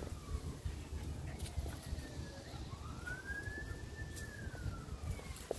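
Faint wailing siren of an emergency vehicle, its pitch rising slowly, holding at the top and falling away, twice. It sounds over a low rumbling background.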